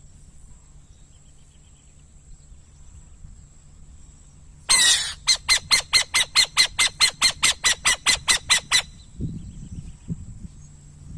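Burrowing owl calling: a harsh screech about halfway in, running straight into a rapid, even chatter of about eighteen sharp notes at roughly five a second, which stops after about four seconds.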